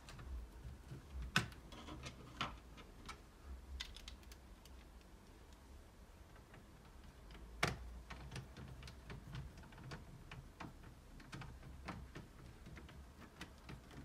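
Screwdriver driving screws into the metal cover plate of an all-in-one PC: irregular small clicks and ticks of the bit and screws on metal. Sharper clicks come about a second and a half in and again near the middle.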